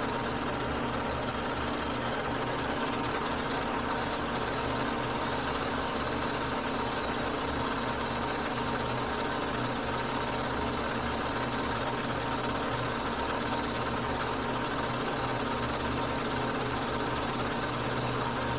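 Metal lathe running steadily, spinning a Dana 60 axle shaft while 400-grit sandpaper polishes its sealing surface. A faint high whine joins about four seconds in and fades out past the middle.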